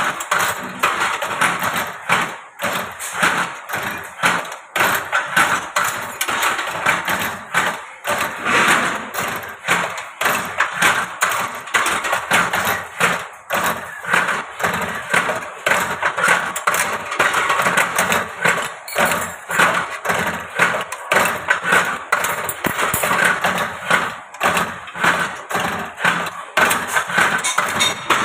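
Automatic ring-making machine driven by a 1.5 hp electric motor, running steadily with a fast, regular mechanical clatter as it cycles.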